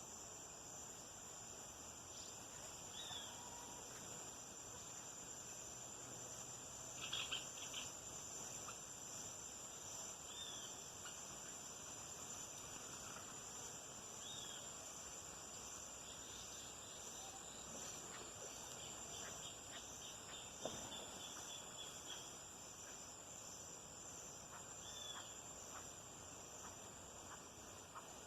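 Faint, steady, high-pitched chorus of crickets, with short chirps from another animal now and then and a brief rapid trill about two-thirds of the way through.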